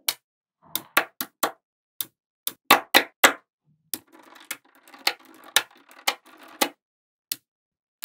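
Small magnetic balls clicking sharply as blocks and strands of them snap onto a structure built of the same balls, with a light rattling clatter between the clicks. The clicks come in irregular clusters, loudest a few seconds in, thinning to a single click near the end.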